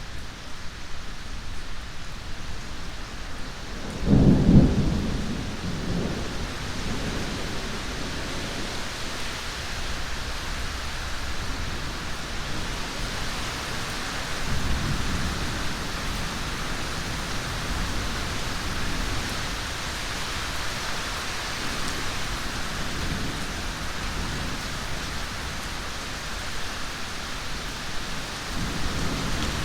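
Steady heavy rain with a loud rumble of thunder about four seconds in, followed by fainter rolls of thunder later on.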